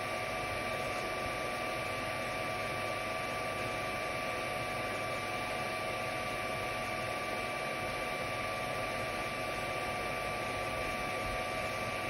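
FDM 3D printer running a print: its cooling fans whir steadily with a constant high whine over an even hiss.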